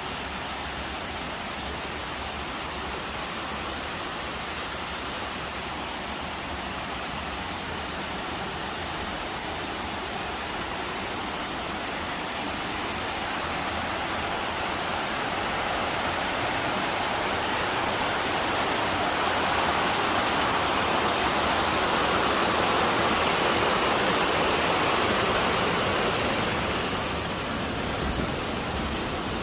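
Steady rush of a waterfall's falling water, growing louder through the middle and easing off near the end.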